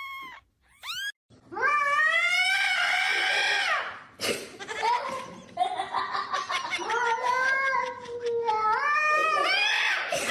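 A cat yowling: two short calls, then long, drawn-out yowls that waver up and down in pitch.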